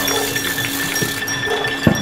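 Clap for Carers street noise: metallic clinking over a steady held tone, with one sharp bang just before the end.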